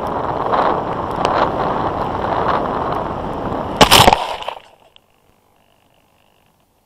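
Airflow rushing past a Bixler 1.1 FPV plane's onboard camera on a low landing approach, then a loud rough crunch about four seconds in as the plane lands in tall grass. The rushing dies away within half a second as the plane comes to rest.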